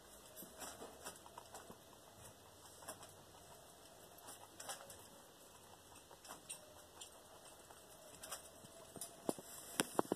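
Baby Angora x American Chinchilla rabbits and their doe munching sprouted barley fodder, a scatter of small, irregular crunching clicks as they bite and tear the grass. A few sharper clicks come near the end.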